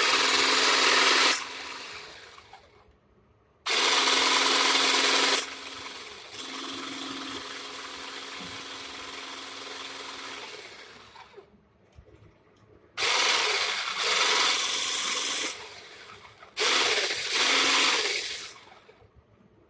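Handheld electric stick blender with a whisk attachment beating eggs in a bowl. The motor runs in bursts: a loud run at the start, a loud run about four seconds in that carries on more quietly until about eleven seconds, then two more short loud runs near the end.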